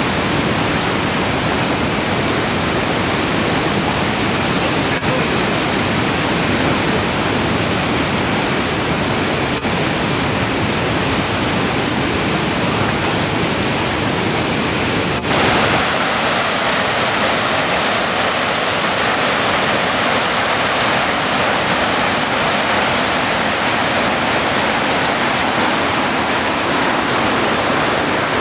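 Water released from a reservoir dam rushing down a concrete outlet channel and churning into the river below, then the river in spate running through rapids: a loud, steady rush. The character of the rush changes abruptly a few times, most clearly about halfway, where it turns brighter and hissier.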